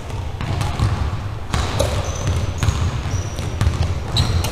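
A badminton rally on a hardwood gym floor: sharp racket hits on the shuttlecock every second or so and short sneaker squeaks, over a steady low rumble in the hall.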